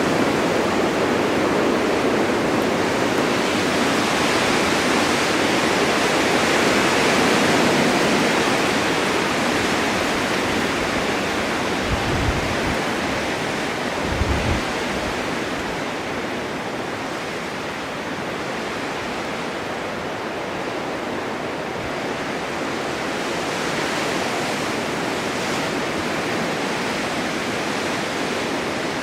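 Blizzard wind blowing snow, a continuous rushing noise that swells in the first several seconds and then eases a little. Two brief low thumps come near the middle.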